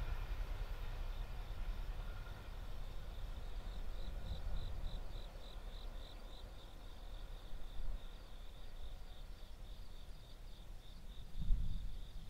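Insects chirping in a high, even trill that breaks into a pulsing of about four chirps a second from about four seconds in, over a low rumble; the noise of the receding train dies away in the first couple of seconds.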